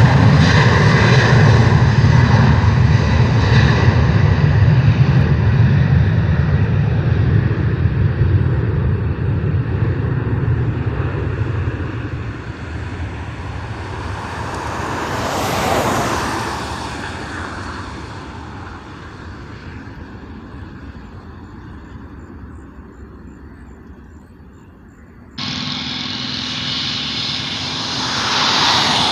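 Airliner engines running loud, then fading away as the aircraft moves off, with a brief swell about halfway through. A few seconds before the end the sound cuts abruptly to another aircraft's engines, with a steady whine.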